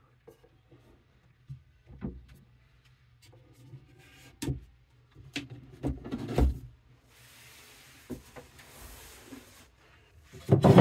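Louvered teak cabinet doors being shut and handled: a series of light wooden knocks and rubs, then a soft rustling hiss lasting about two seconds, and a louder thump near the end.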